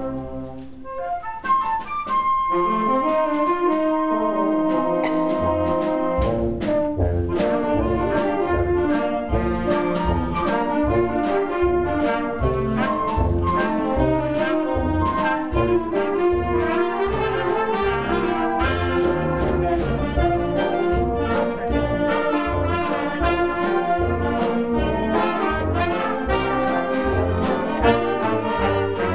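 Concert band playing a ragtime-style piece. A held chord ends just after the start, and a short, lighter passage follows with one long high note. From about six seconds in, the full band of brass and woodwinds plays over a steady oom-pah bass beat.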